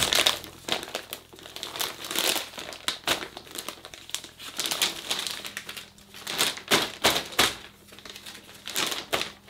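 Clear plastic bag of pellets crinkling in irregular bursts as it is opened and its mouth pulled open and straightened by hand.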